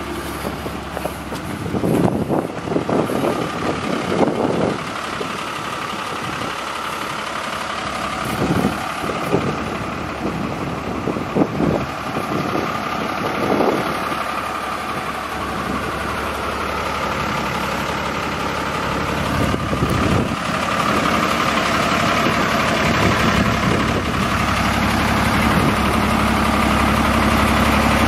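A 2000 Freightliner fuel truck's diesel engine idling steadily, growing somewhat louder toward the end. There are scattered knocks and rustles in the first half.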